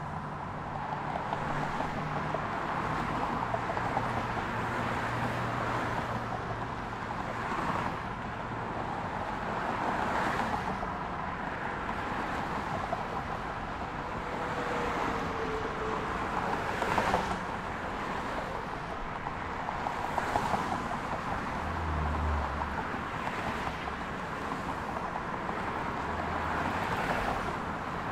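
Multi-lane city highway traffic: cars passing one after another with tyre noise and engine hum, swelling and easing every few seconds. Two brief louder knocks come past the middle.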